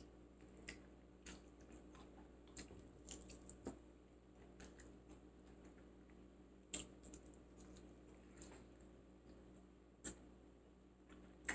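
Faint, scattered mouth clicks and soft wet smacks of someone chewing food, with a couple of sharper clicks about seven and ten seconds in.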